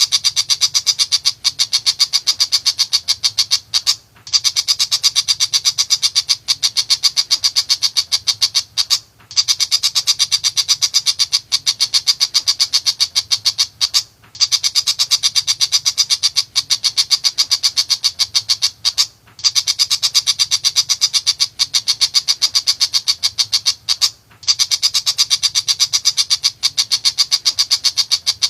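Tiger shrike (pentet macan) giving a rapid, harsh chattering song of about ten notes a second, in runs of about five seconds broken by brief pauses.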